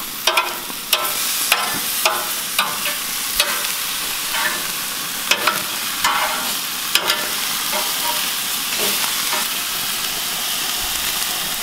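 Beef short ribs sizzling on a hot gas grill, a steady frying hiss broken by a dozen or so irregular sharp clicks and scrapes.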